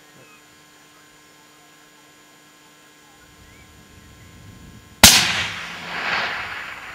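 A single rifle shot from a Savage Weather Warrior in .270, fired about five seconds in: a sharp, very loud crack followed by a rolling echo across the valley that swells again about a second later as it dies away.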